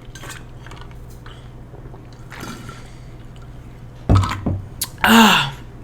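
A person drinking from a cup: quiet sips, then a couple of low gulps about four seconds in, followed by a short exhaled 'ahh' that falls in pitch.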